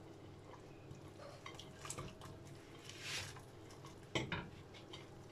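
Light cookware handling: a pot lid and glass bowl clinking while sliced onions are pushed by hand into a pot of simmering chicken broth, with a short rustle of onions and one sharper knock about four seconds in.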